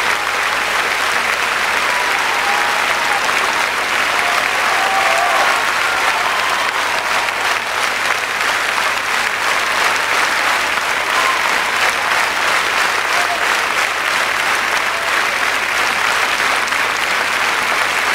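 Large concert audience applauding: steady, dense clapping of many hands.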